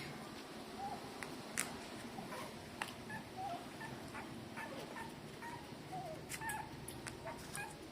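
Newborn puppies, about three days old, squeaking and whimpering while nursing: many short, high little squeaks scattered throughout, with a few small sharp clicks among them.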